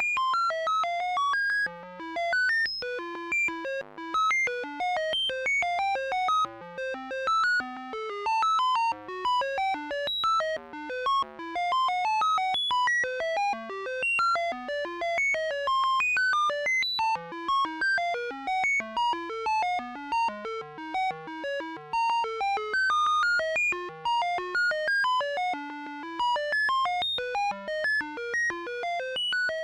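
Synthesized electronic bleeps: a fast stream of short tones, about ten a second, hopping randomly up and down in medium pitch like a retro computer processing data, over a faint steady low hum.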